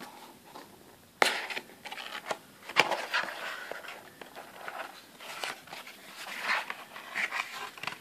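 Cardboard packaging of a Samsung Galaxy S4 box being handled as the inner cardboard insert and quick start guide are lifted out: scraping and rustling with sharp clicks, the first about a second in and another near three seconds.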